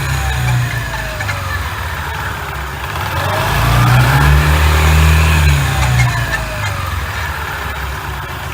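Honda PCX125 (JF56) scooter under way: the engine speeds up about three seconds in, then eases off. A thin whine from the drivetrain side rises and falls in pitch with road speed. This whine is the abnormal running noise the scooter was brought in for.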